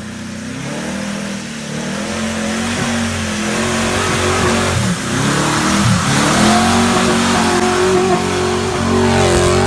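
Off-road vehicle's engine revving up and down in repeated bursts as it climbs through deep mud, getting louder as it nears and passes close by.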